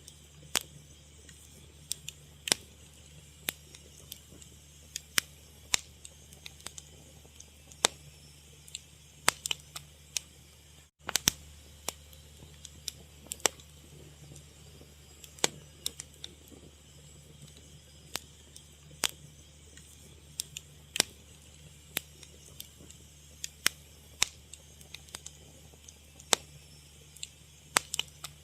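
Fire crackling: irregular sharp pops and snaps, several a second, over a faint steady low hum.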